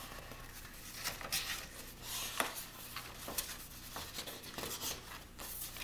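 Coloring-book pages rustling and crinkling as they are lifted and turned by hand, with several sharper paper crackles along the way.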